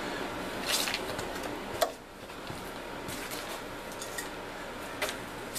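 Hands handling wiring inside a furnace cabinet: scattered light clicks and rustles, with one sharp click about two seconds in. After that click the steady background hiss becomes quieter.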